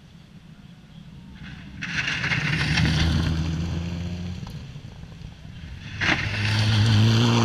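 Rally car passing at speed on a loose gravel forest stage: the engine note swells as it comes by, with tyre and stone noise from the loose surface, then fades. About six seconds in, a second loud burst of engine noise starts suddenly and cuts off sharply.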